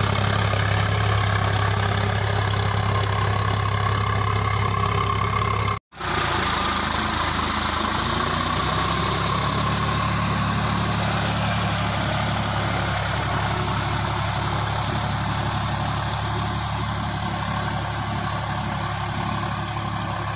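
Sonalika tractor's diesel engine running steadily. About six seconds in it cuts to silence for an instant, then carries on with a slightly different engine note.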